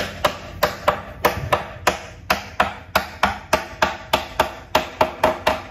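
Hammer blows on the wooden panels of a subwoofer cabinet being assembled, a steady run of sharp strikes at about three a second, each with a short ring.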